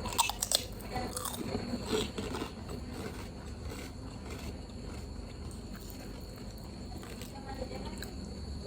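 Crisp tempura seaweed snack being bitten and crunched close to the microphone, with a few sharp crunches in the first two seconds, then quieter chewing.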